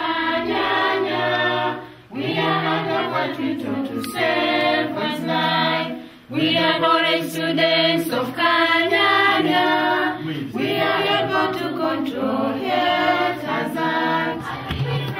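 Choir of young women, with a man's voice among them, singing a song together in sustained phrases, with short breaks for breath about 2 and 6 seconds in.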